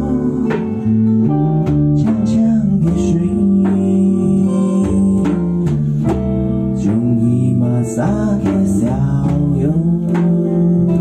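A small live band playing a song: strummed acoustic guitar with electric bass and electric guitar, and a man singing lead over it.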